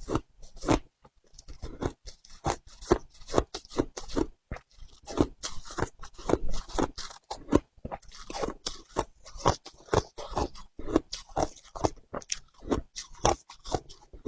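Frozen matcha ice being bitten and chewed: rapid, irregular crunches, several a second, with short pauses between bites.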